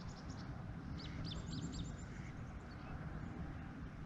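A bird calling outdoors: a quick run of short, high chirps about a second in, with a few fainter chirps at the start, over a steady low rumble.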